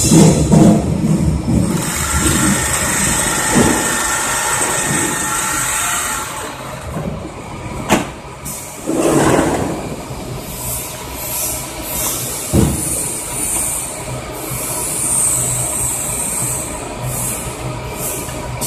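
Automatic potato weighing and bagging line running: a continuous machine rattle and hum. There are louder rushing bursts about a second in and again around nine seconds, and sharp knocks near eight and twelve and a half seconds.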